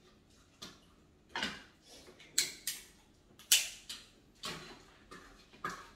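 Sharp, irregular cracks and snaps, about eight in a few seconds, of steamed crab and shrimp shells being broken open while eating.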